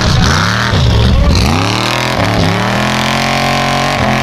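Formula offroad buggy's engine revving hard in several quick up-and-down bursts as its wheels spin in loose gravel on a steep climb, then held at high revs for about a second and a half before starting to fall near the end.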